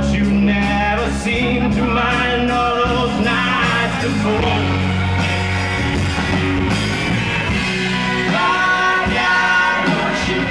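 Live rock band playing through a loud PA, with a singer's voice over guitar and drums, as heard from within the audience.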